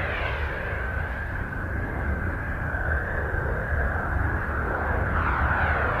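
Eerie continuous drone from a Voyager spacecraft recording of Uranus converted to sound: a deep rumble under a steady high whine, with sweeping tones that rise and fall above it near the start and again near the end.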